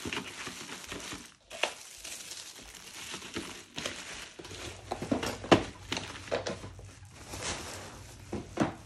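Packaging crinkling and rustling as it is handled, with scattered light clicks and knocks; a sharp knock about five and a half seconds in is the loudest.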